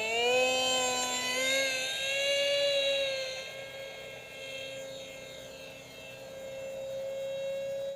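Electric motor and propeller of an RC foam F-18 model plane whining in flight. The pitch rises over the first second as the throttle comes up, then holds steady. It grows fainter a few seconds in and louder again near the end.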